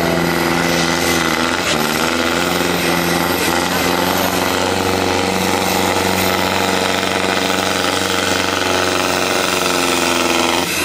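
Valmet diesel tractor engine running flat out under heavy load as it drags a weight-transfer pulling sled. A loud, rough, steady drone whose note dips and wavers briefly near two seconds in, then holds steady.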